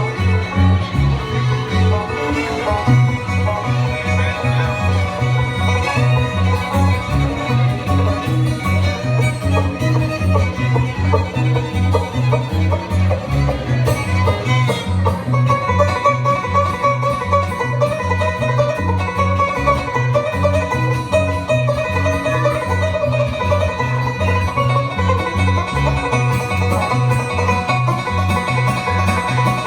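Live bluegrass band playing an instrumental break: banjo and fiddle over guitar, with a steady beat and a bass line that alternates between two low notes.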